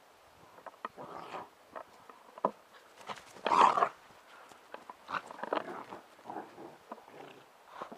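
Bernese Mountain Dog puppies making short, irregular dog noises while playing together, the loudest a burst about three and a half seconds in.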